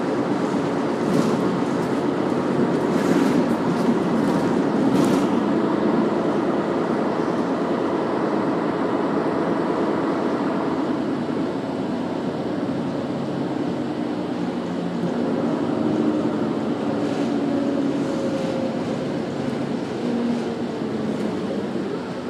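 Cabin noise inside a moving city bus: engine and road noise running steadily, the engine's pitch shifting as the bus speeds up and slows, with a few short rattles in the first few seconds.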